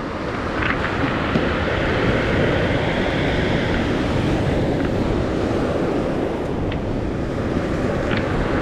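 Steady noise of sea surf and wind buffeting the microphone, swelling gently, with a few faint clicks.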